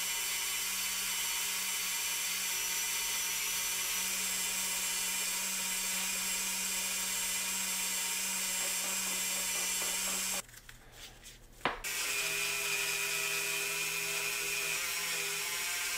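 Rotary tool with a brass wire wheel spinning against a die-cast zinc baseplate, a steady high-speed whine. It breaks off for about a second and a half near eleven seconds in, then runs again at a slightly lower pitch.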